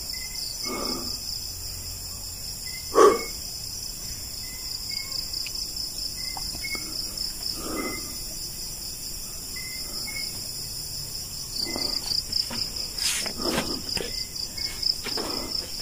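A steady night chorus of crickets chirping, with a fainter short insect call repeating about once a second. A few soft thuds and rustles come through, the loudest a sharp knock about three seconds in.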